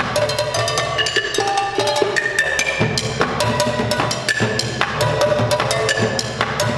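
Fast bucket drumming on upturned plastic buckets and lids, a dense run of rapid hits, over a steady didgeridoo drone.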